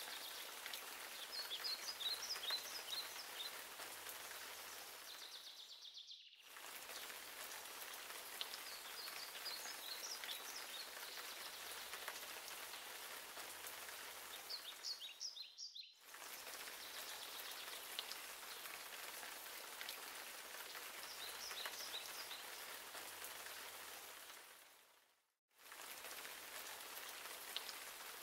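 Steady rain falling, with a small bird twittering in short bursts several times. The sound drops out briefly three times.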